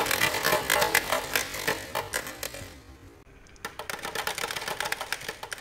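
Many marbles rolling and clattering down a marble run's slopes and downspouts, a dense rapid clicking that thins out after about two and a half seconds. After a short lull a second burst of clicking follows.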